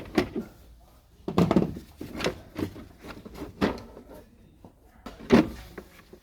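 Irregular knocks and rattles of plastic parts being handled, typical of working the plastic air filter housing open and lifting the filter. The loudest knock comes near the end.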